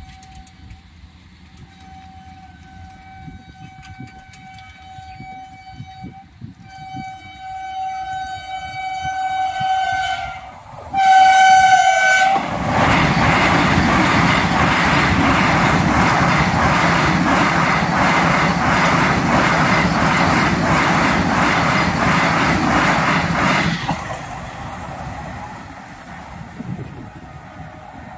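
A Vande Bharat Express electric trainset sounds its horn in several long blasts as it approaches, each louder than the last, and the final, loudest blast falls in pitch as it reaches the spot. It then rushes past at about 130 km/h for some eleven seconds with a rapid, regular clatter of wheels on the rails, and fades away.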